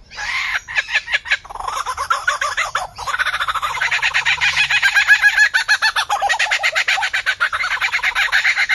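A bird calling in a fast, continuous chatter of rapidly repeated notes, growing louder about three seconds in.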